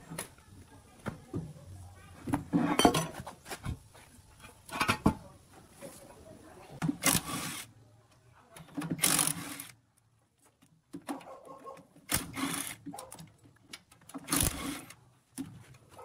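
Cordless impact wrench hammering in short bursts, about six times, as it works the rusted bolts off a steel machine housing.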